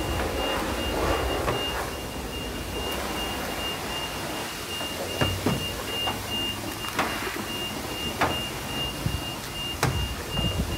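Fast, evenly pulsed high electronic beeping over a low rumble, with a few sharp clicks in the second half.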